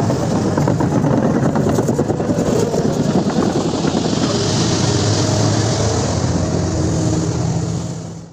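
Kobelco SK330-10 hydraulic excavator's diesel engine running steadily, a low rumble that fades out near the end.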